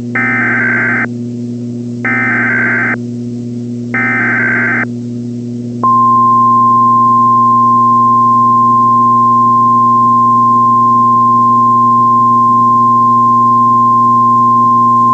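Emergency Alert System SAME header: three short warbling data bursts about a second apart, then a steady single-pitch 1050 Hz Weather Radio alarm tone starting about six seconds in, over a low steady hum. Together they mark the start of a new emergency alert broadcast.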